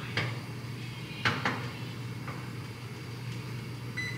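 A few sharp metallic clinks and knocks as small metal pots are handled on a gas stovetop, two of them close together a little after a second in, over a steady low hum.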